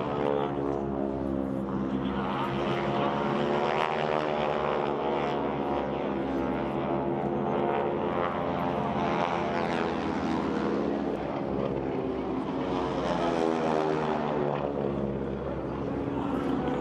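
A propeller airplane's engine droning steadily in flight, its pitch slowly shifting up and down.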